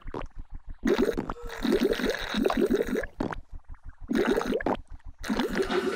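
Comic, noisy gurgling and slurping of juice being drunk from a bottle: a string of short bubbling bursts with brief gaps between them, over a fast, even low pulse.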